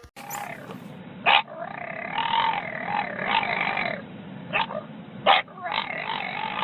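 A dog vocalizing: a few short, sharp barks with longer, wavering, pitched whines between them.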